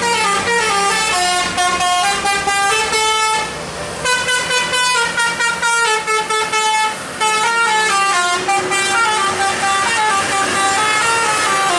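Bus musical air horn (telolet) playing a fast melody of short steady notes that step up and down in pitch, pausing briefly about three and a half seconds in and again around seven seconds.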